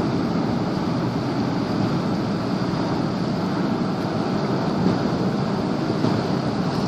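Steady rumble of a boat's engine with water washing along the hull, and some wind on the microphone.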